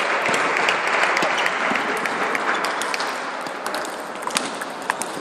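Applause filling a large hall, easing off over the last couple of seconds. Sharp clicks of celluloid table tennis balls striking paddles and the table sound through it.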